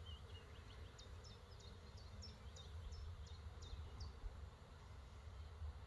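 A small bird singing a run of about ten quick, high chirps that stops about four seconds in, over a faint low outdoor rumble.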